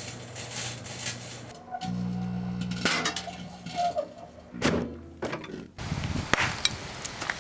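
Microwave oven humming as it runs, broken up by sharp pops, cracks and thuds, in short clips spliced together so the hum changes pitch abruptly a few times.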